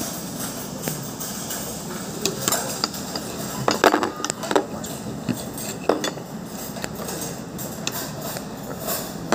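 Cutlery clinking against plates as a meal begins: a scatter of sharp clinks, most of them about four seconds in, over a steady background noise.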